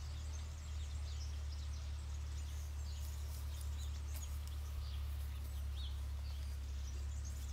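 Birds chirping faintly here and there over a steady low rumble.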